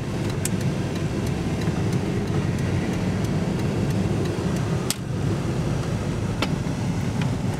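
Cab interior of a 1994 Chevrolet Suburban with a 350 V8 driving at low speed: a steady low rumble of engine and road noise. A few sharp clicks break in, the strongest about five seconds in.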